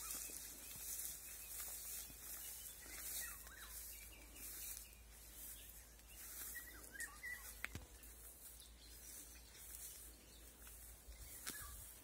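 Distant nightingale singing faintly: short whistled phrases every few seconds.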